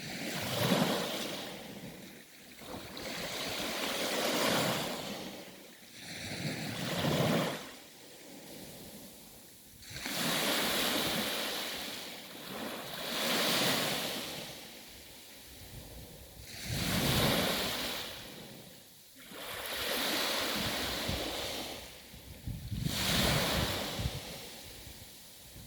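Sea waves breaking and washing up the shore, each surge swelling and fading about every three seconds in a slow, even rhythm.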